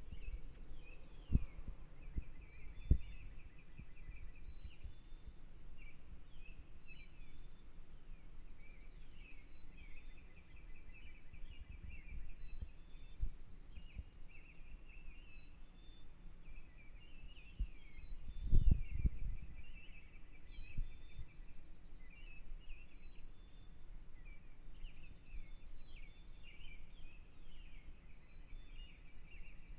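Birds chirping in the early morning: many short chirps and quick whistled slides, with a high buzzy trill repeating about every two seconds. A few low thumps break in, the loudest about two-thirds of the way through.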